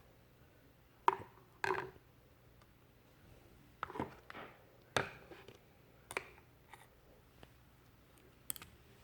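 Slime being worked by hand: a few short, separate squishes and clicks about a second apart.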